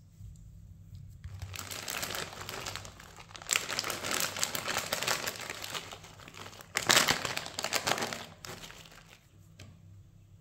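A plastic bag of shredded mozzarella crinkles as it is handled and tipped out. The crinkling begins about a second in, comes loudest in two surges, and dies away near the end.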